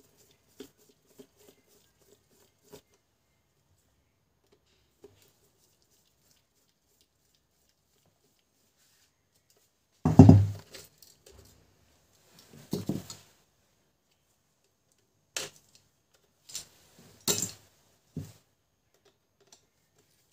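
Plastic printer cartridge parts being handled and worked on by hand: a few faint ticks, then a loud knock about halfway through followed by several shorter knocks and clatters.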